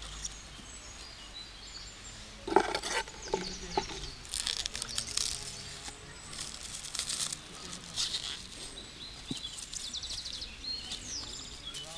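Small birds chirping in short, high calls, with a cluster of sharp knocks and clatter about two and a half seconds in.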